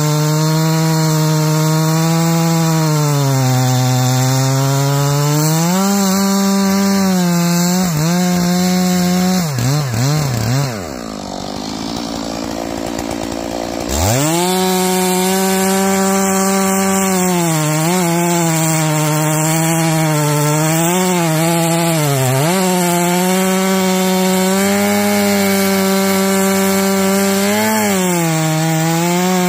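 Stihl MS461 two-stroke chainsaw at full throttle bucking green fir, its pitch dipping again and again as the chain loads up in the wood. About ten seconds in it drops to idle for a few seconds, then revs back up and cuts again.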